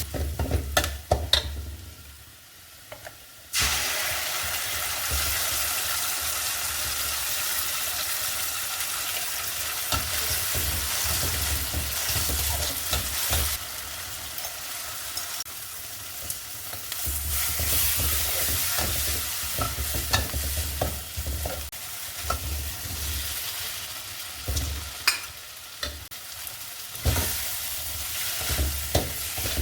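Food sizzling in a hot pan while a utensil stirs it, with frequent short scrapes and knocks against the pan. The sizzling drops away for about a second and a half a couple of seconds in, then comes back.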